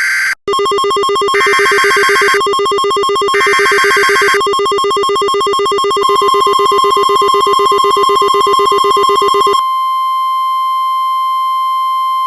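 Emergency Alert System tones: short warbling bursts of SAME digital header data, three in all with the first already ending, sound over a rapidly pulsing electronic buzz. About six seconds in a steady single-pitched alert tone joins, and it carries on alone after the buzz cuts off near ten seconds, announcing the next warning.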